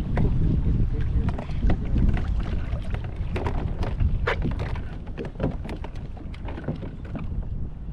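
Wind buffeting the microphone, with scattered light clicks and knocks from fishing gear being handled aboard a kayak.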